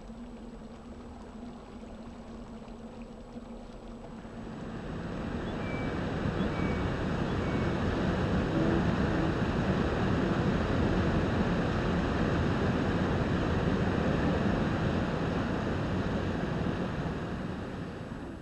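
Whitewater rapids rushing, a steady roar of water that swells in about four seconds in and fades away near the end.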